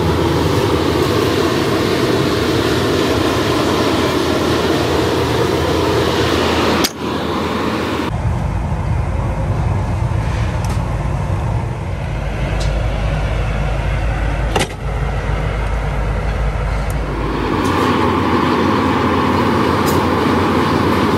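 Loud, steady mechanical roar of foundry machinery, its tone changing abruptly twice where shots are cut together, with a brief click at two other cuts.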